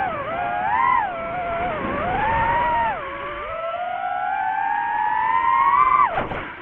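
DJI FPV drone's motors and propellers whining, the pitch swinging up and down with the throttle. A long climbing whine builds over a few seconds, then the pitch drops sharply near the end.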